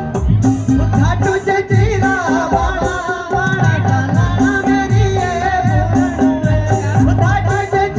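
A song performed live: a singer's voice over instrumental backing with a steady, repeating drum beat, the voice coming in about a second in.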